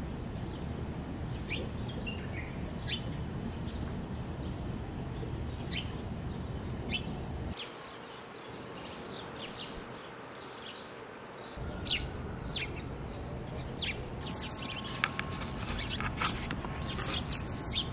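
Small birds chirping now and then, short high chirps over a steady outdoor background noise, with the chirping growing busier near the end.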